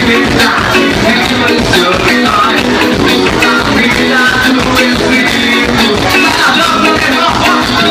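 A live band playing upbeat gospel axé music with a steady, driving drumbeat.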